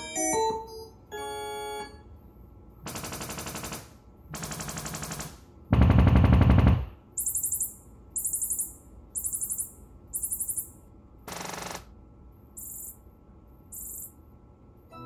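Sony home theater system (A5000 soundbar, RS5 rear speakers, SW5 subwoofer) running its automatic sound field optimization: a few short beep tones, then a sequence of calibration test-signal bursts played through the speakers in turn. About six seconds in, one burst is much louder and deeper than the rest. A run of five high-pitched bursts follows, then more spaced-out bursts.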